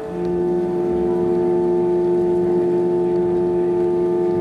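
Ambient background music: a slow, droning chord of long held tones, shifting to a lower chord right at the start and then holding steady.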